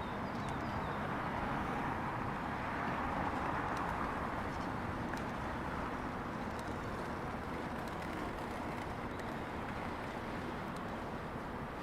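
Rainy town street ambience: a steady wash of noise, with a car's tyre hiss on the wet street swelling and fading a few seconds in.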